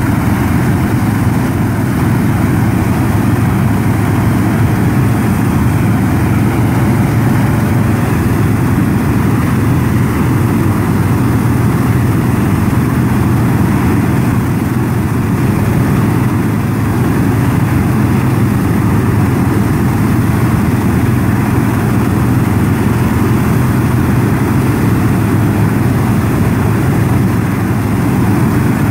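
Steady engine drone with a continuous rushing noise underneath, from a tractor pulling a propane flame weeder with a full row of burners lit.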